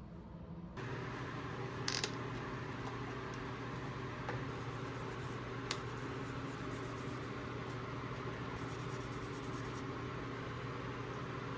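Small clicks and scrapes of laptop parts and tools being handled during disassembly, with two sharper clicks. Under them a steady hum starts about a second in.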